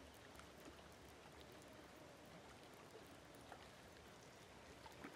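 Near silence: faint lakeside ambience with a few soft ticks, and one brief splash near the end from a fish swirling at the surface on the line.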